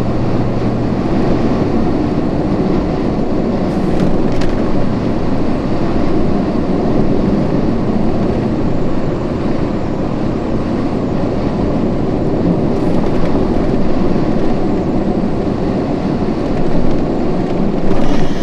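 Steady road and engine noise inside a moving vehicle, a constant low drone that swells briefly near the end.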